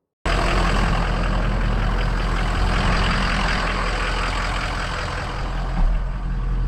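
Pickup truck running and driving, heard from inside the cab: a steady low engine hum under road and wind rush. It starts abruptly about a quarter second in.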